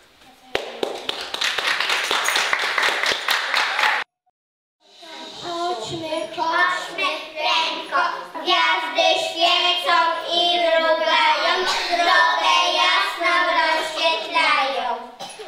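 Applause for about three and a half seconds, cut off abruptly. After a short silence, a group of young children sing a song together for about ten seconds.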